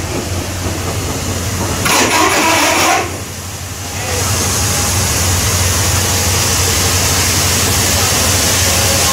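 A State Railway of Thailand GEK-class diesel locomotive running at close range as it rolls slowly past, its engine giving a steady low hum. About two seconds in comes a loud hissing burst lasting about a second, and from about four seconds in the locomotive's running noise is louder and steady.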